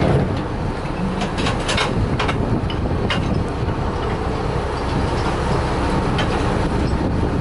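Fishing trawler's engine running steadily with a low rumble, with a few sharp knocks from deck gear in the first half.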